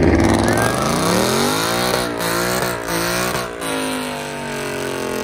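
Ford Mustang engine revving hard as the car launches with its rear tires spinning and smoking. The pitch climbs over the first couple of seconds, wavers up and down in the middle, then holds steadier and a little quieter near the end.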